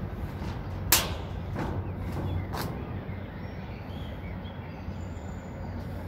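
Footsteps on the perforated metal deck of a footbridge: sharp clanking steps at a walking pace, the loudest about a second in, growing fainter and sparser after about three seconds, over a steady low background rumble.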